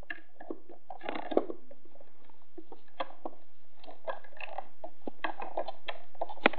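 Close handling noise from a small plastic toy TV being fiddled with in the hands: scattered clicks and taps with rubbing and scratching of fingers on plastic, very near the microphone.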